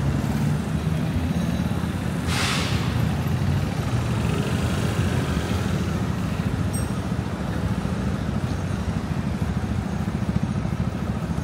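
Steady city street traffic noise, with one short hiss about two seconds in.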